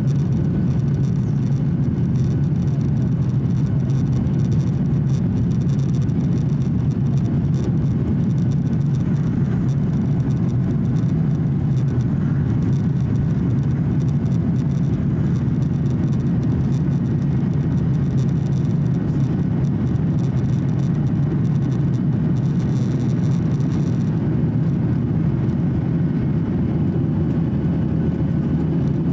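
Steady cabin noise of a Boeing 737-800 in the climb after takeoff: the low, even rumble of its CFM56-7B engines and the rush of air over the fuselage, heard from a window seat by the wing.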